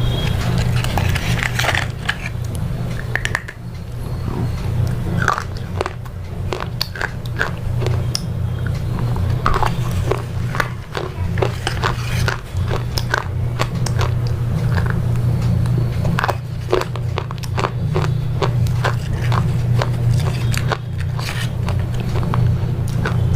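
Irregular sharp crunches and clicks, several a second in bursts, over a steady low hum.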